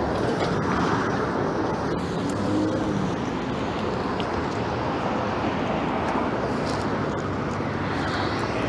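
Steady street traffic noise: cars running past with engine and tyre noise.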